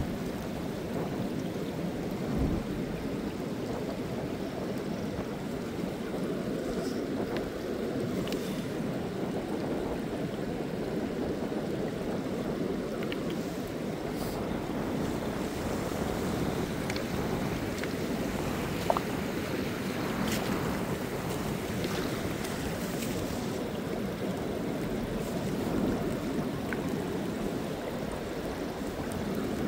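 Steady ocean surf with wind buffeting the microphone, and a few faint clicks.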